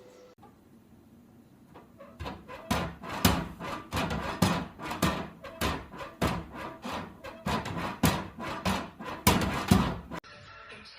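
A rapid, irregular series of sharp knocks and bangs, a few a second, starting about two seconds in and stopping suddenly near the end.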